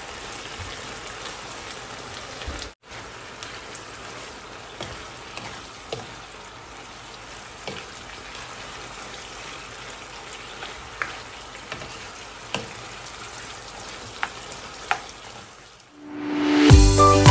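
Chicken and bok choy sizzling in a non-stick frying pan while being stirred, with a few sharp clicks of the spoon against the pan; the sizzle cuts out briefly about three seconds in. Music starts suddenly near the end.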